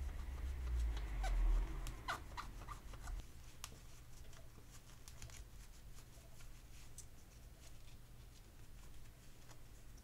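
Cloth rubbing a small clear plastic window part as it is polished with polishing compound, giving faint squeaks and scattered light clicks. A low rumble runs through the first three seconds, and the rubbing sounds are softer after that.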